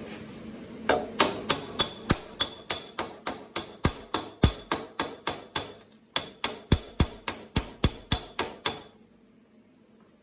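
A hammer striking steel sheet metal in an even run of blows, about three a second, each with a slight metallic ring. There is a brief pause about six seconds in, and the blows stop about nine seconds in.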